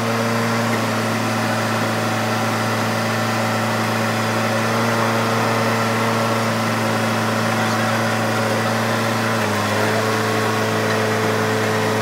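Hydraulic press's motor and pump running with a steady hum as the ram presses down on a truck axle housing; the pitch steps slightly lower about nine and a half seconds in.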